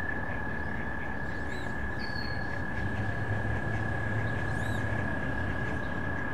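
Wood ducks giving squeaky calls that rise and fall, twice, over a long unbroken high trill of frogs and a low background rumble.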